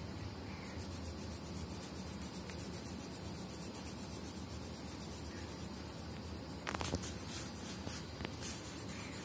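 Colored pencil rubbing on a paper colouring-book page, shading in an area, with a short cluster of sharp clicks about seven seconds in.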